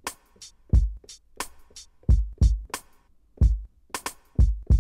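Slices of a sampled hip-hop drum loop triggered one after another on Maschine pads: a run of deep kick hits, sharp snares and hi-hats.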